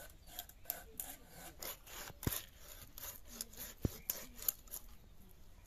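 Rohu fish being scaled against the blade of a boti, a floor-mounted curved knife: a run of short scraping strokes, about three a second, as the scales are rasped off. Two low knocks come in the middle.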